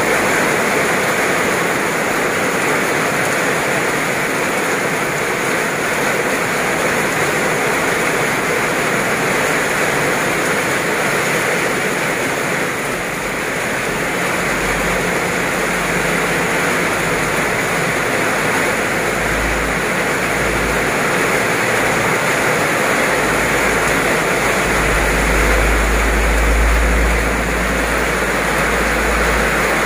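Heavy rain pouring steadily onto wet pavement and standing water. A low rumble comes and goes in the second half.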